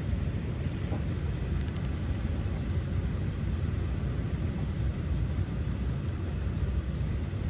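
Steady low rumbling outdoor noise, with a bird's quick run of about eight short high chirps about five seconds in.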